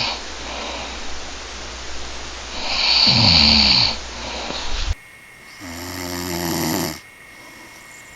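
Men snoring, from two spliced recordings. There is one long, loud snore about three seconds in. About five seconds in it switches abruptly to a quieter recording, where another man gives one steady, pitched snore.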